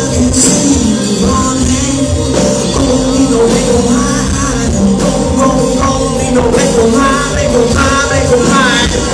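Live band playing a song loudly, with a singer's voice over the instruments that grows more prominent from about three and a half seconds in.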